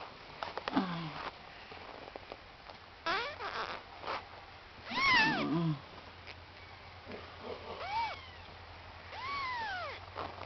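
Cat meowing: four or five high meows, each rising and falling in pitch, a couple of seconds apart, the loudest about five seconds in.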